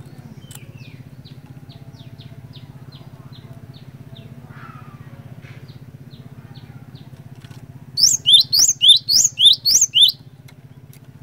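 Cinereous tit (glatik batu) singing: faint, thin, evenly spaced high notes about twice a second, then about eight seconds in a loud, rapid run of about eight sweeping whistled notes lasting two seconds. A steady low hum runs underneath.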